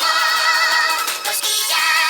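Music with a high, wavering sung vocal line.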